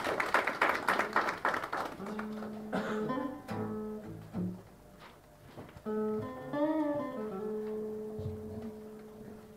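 Applause dies away in the first couple of seconds, then slow music on a string instrument follows, with long held low notes and a few notes that bend up and down.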